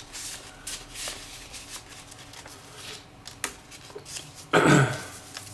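Paper and card rustling and crinkling as a postcard is slid into a paper airmail envelope and the envelope is handled, with one brief, louder noise about four and a half seconds in.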